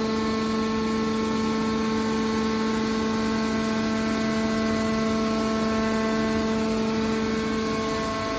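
Hydraulic pump and motor of a scrap metal baler running under load with a steady, even-pitched whine as a hydraulic cylinder folds the press lid shut.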